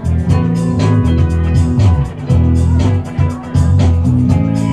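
A live band plays an instrumental passage: electric guitar and keyboard over a steady beat and a sustained low bass line.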